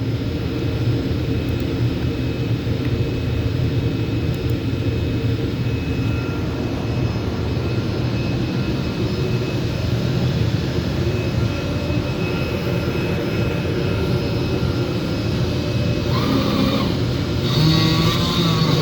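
CNC leather cutting machine running with a steady, loud whir and a few high steady tones over it. Near the end a wavering pitched sound comes in.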